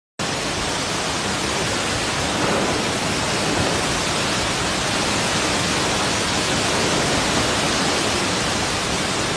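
Heavy rain pouring down in a steady, dense hiss that begins abruptly and holds without change.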